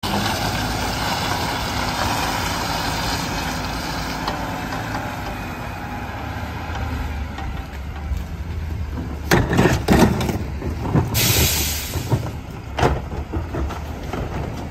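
Rear-loader garbage truck's diesel engine running steadily as the truck pulls up and stops, then a loud air-brake hiss lasting about a second, two-thirds of the way through. Several sharp clunks of plastic trash carts being grabbed and wheeled to the hopper come just before and after the hiss.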